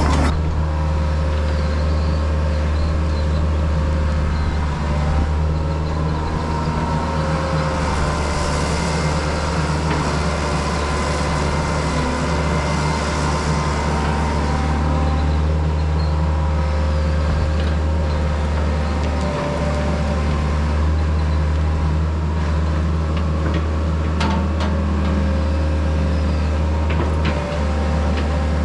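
Diesel engine of a piece of earthmoving equipment running steadily under load, with a few light knocks near the end.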